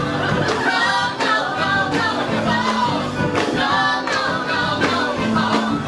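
Several voices singing together in a live ensemble, with piano accompaniment.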